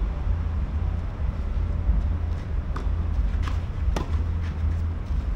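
Wind on the microphone as a steady low rumble, with a few sharp taps in the second half: a tennis ball bounced on the clay court and then struck by a racket, the sharpest tap about four seconds in.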